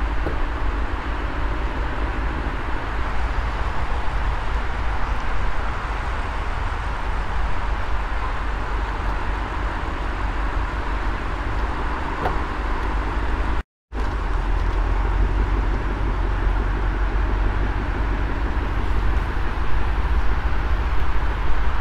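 Lexus LC500's naturally aspirated 5.0-litre V8 running at low speed as the car rolls slowly, a steady sound with a strong low rumble, cut off briefly about 14 seconds in.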